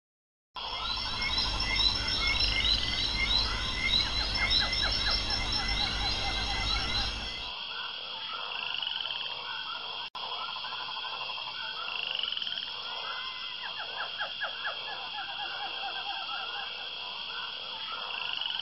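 A night chorus of frogs croaking continuously, many calls overlapping, over a steady high trilling. It starts about half a second in; a low rumble under it stops about seven seconds in, and the sound drops out for an instant near the middle.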